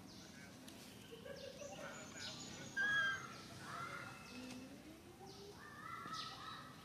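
Short, high animal calls over faint outdoor background noise. The loudest is a brief call about three seconds in, and a few falling calls come near the end.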